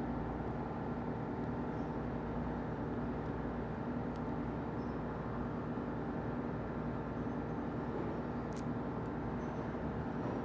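Steady machinery hum with a constant drone, unchanging throughout, and a faint click about eight and a half seconds in.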